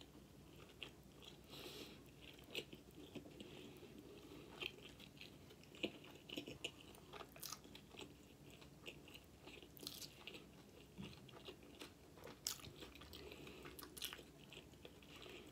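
A person chewing a mouthful of pulled pork burger with her mouth closed: faint, irregular mouth clicks.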